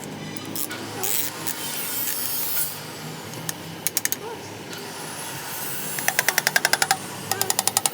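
A brief hiss, then two quick runs of rapid sharp metallic clicking, about a dozen clicks a second, from a ratchet wrench being spun during engine work.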